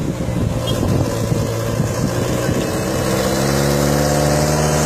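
A motor vehicle's engine running nearby, its pitch drifting slightly up and down, with voices in the background.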